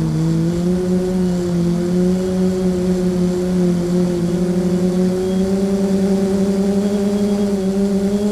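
Quadcopter's electric motors and propellers humming steadily, heard close from its onboard camera, the pitch rising slightly as it flies low. In the second half the hum takes on a fast pulsing beat.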